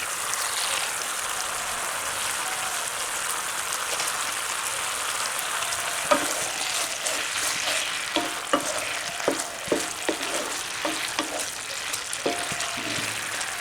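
Small puti fish and tamarind-sour sauce sizzling steadily in a pan. From about six seconds in, a series of sharp utensil clicks and knocks against the pan is heard.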